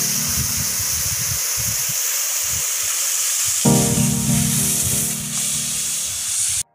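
Background music over a steady hiss; the music drops out for the first few seconds, leaving the hiss and an uneven low rumble, then returns and the sound cuts off abruptly near the end.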